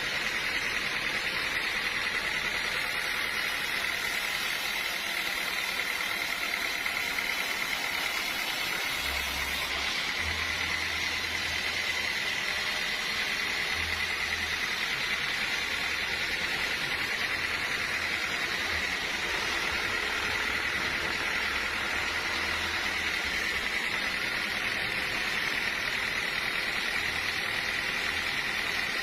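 Sawmill machinery running steadily, with a constant high whine over a steady mechanical noise and brief low rumbles now and then.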